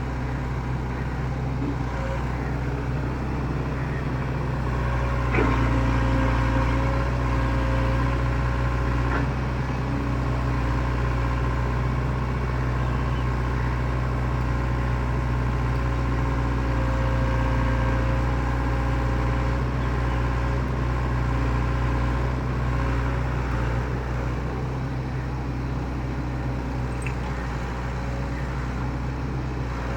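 Excavator's diesel engine running steadily, with a steady higher whine over the low engine note. There is a single sharp knock about five seconds in, after which it gets a little louder for a while.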